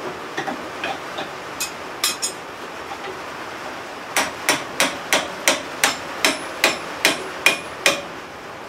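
Hand hammer striking a hot railroad-spike tomahawk head held in a vise: a few light taps, then from about four seconds in a steady run of blows, about three a second, each with a short metallic ring. The blows are truing up the head to bring it back into alignment.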